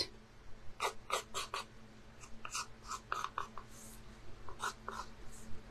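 Chalk pencil scratching across an acrylic-painted canvas in short back-and-forth sketching strokes, coming in small quick groups with pauses between.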